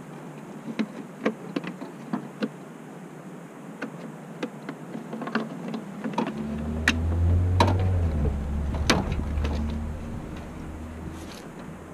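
Scattered plastic clicks and taps as the truck's taillight housing is handled and pushed back into place on its clips. About six seconds in, a vehicle goes by with a low engine rumble that swells and then fades over some four seconds.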